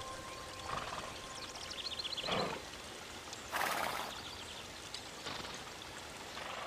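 Quiet outdoor poolside ambience with a steady hiss of water. About two seconds in there is a quick run of high chirps, and a louder rushing burst lasts about half a second near three and a half seconds in.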